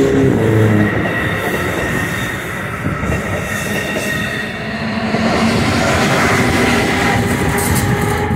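Amtrak Amfleet passenger cars rolling past close by: a steady rumble of steel wheels on rail, with a faint high wheel squeal.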